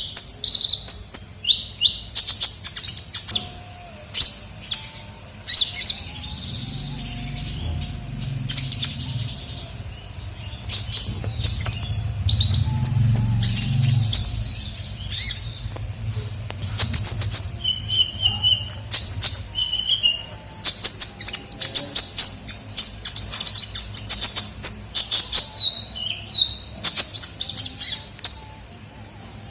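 Song of a sunbird, the cage bird known in Indonesia as 'kolibri ninja': rapid runs of high, sharp chirps and twitters in clusters, the kind of recording played as a lure to call in wild birds. A low rumble sits under the calls for several seconds in the middle.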